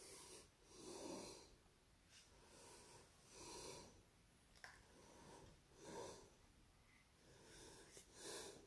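Near silence: room tone with faint breaths every two seconds or so and one small click about halfway through.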